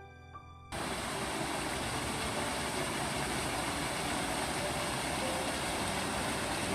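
Soft piano music fades out, and under a second in a steady rush of flowing water cuts in suddenly and runs on evenly.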